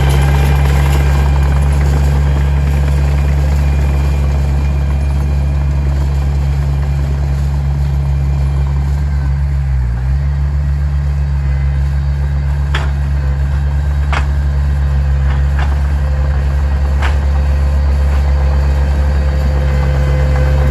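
Heavy diesel earthmoving machine running steadily with a deep drone. A few short, sharp clanks come in the second half.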